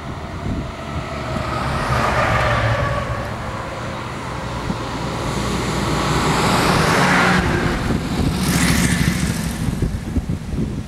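Vintage military trucks and motorcycles in a convoy driving past in turn, engines running and tyres on the road. Each pass swells and fades, the loudest about seven seconds in as the motorcycles go by.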